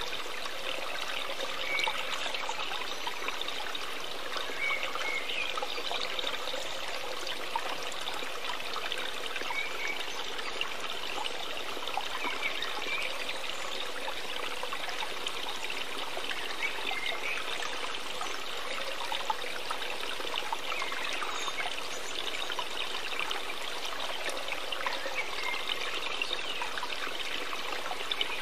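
Steady trickling, running water, like a small stream, with occasional small gurgles.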